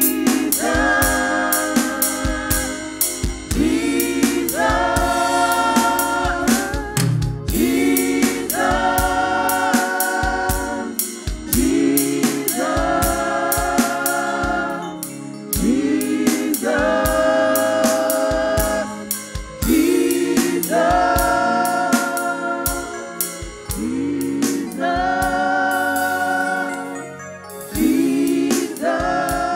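Women's gospel praise team singing in harmony through microphones, with drums keeping time. The voices swell into a held, wavering chord about every four seconds, repeating the same phrase.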